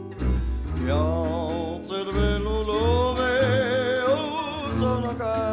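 Background music: a singer holds a long note with heavy vibrato over an instrumental accompaniment with a steady bass.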